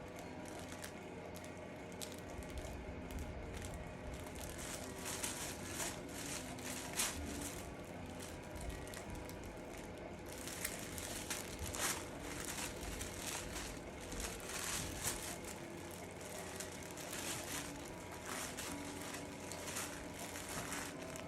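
Book pages rustling and crinkling as they are handled, in irregular bursts, busier in the second half.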